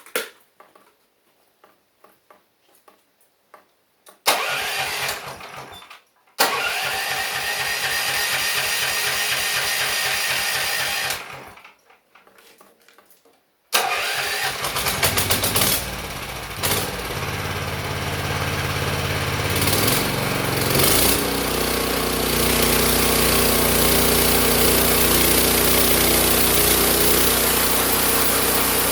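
A small engine starts and runs for a few seconds, stops, then starts again and keeps running steadily, its note shifting once partway through.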